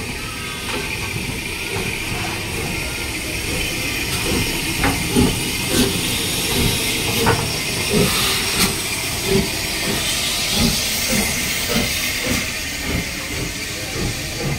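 Southern Railway Schools class steam locomotive No. 926 Repton moving slowly out along the platform, steam hissing throughout. From about four seconds in, a steady beat of thuds comes roughly every two-thirds of a second.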